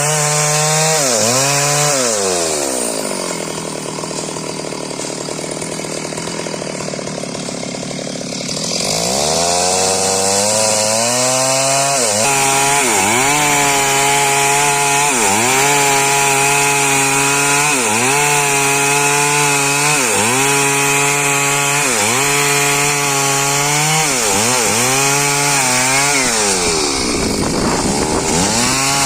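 Chainsaw engine running. It drops to a lower, quieter speed for several seconds, revs back up, then holds high speed with brief dips in pitch every second and a half or so, as when the chain bites into wood.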